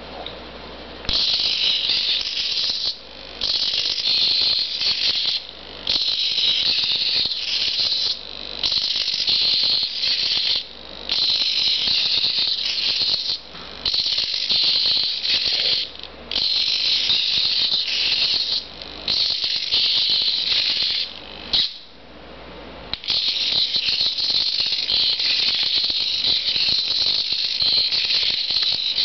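Small hobby servo motors in a wooden biped robot's legs whining and rattling as it walks, high-pitched, in bursts of about two seconds with short pauses between steps, running without a break near the end.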